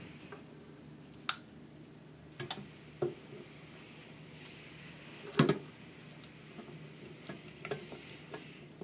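Scattered light clicks and knocks of a KitchenAid stand mixer's plastic-and-metal motor housing being handled and set down onto the gear assembly and stand. The loudest knock comes about five seconds in. The housing is not yet sitting down flat, because the gears are not meshing.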